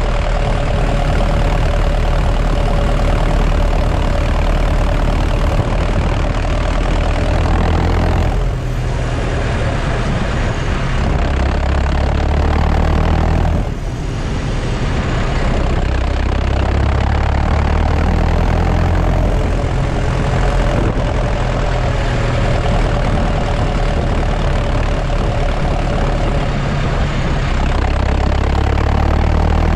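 New Holland T5050's four-cylinder diesel engine running steadily as the tractor drives along, heard close to its exhaust stack. The engine note drops briefly twice, about eight and fourteen seconds in, then picks up again.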